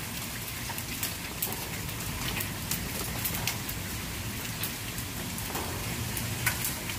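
Rain mixed with hail falling on a wet concrete patio: a steady hiss of rain with many sharp scattered ticks of stones and drops striking.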